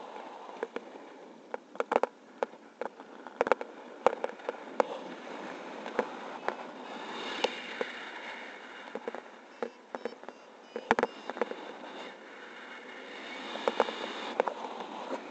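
Wind rushing over the camera in paraglider flight, with irregular sharp cracks and pops coming in clusters, the loudest about eleven seconds in.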